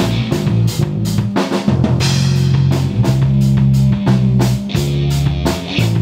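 Live rock band playing: a drum kit keeps a steady beat under electric guitar, acoustic guitar and bass guitar.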